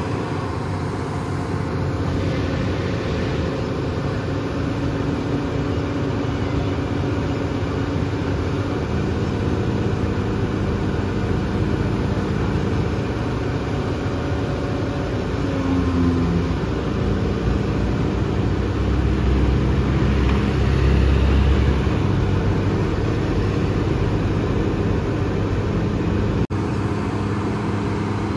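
Diesel engine of a SANY SY240C crawler excavator running steadily while it works its boom and bucket, its low rumble swelling for a few seconds about two-thirds of the way through.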